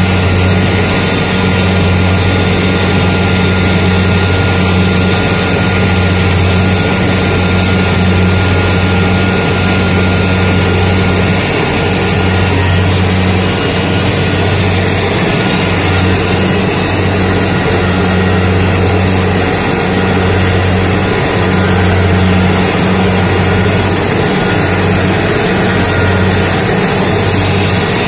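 Rice combine harvester running steadily while it cuts ripe rice: a continuous engine drone with a low hum that pulses slightly, over the rushing noise of the cutting and threshing machinery.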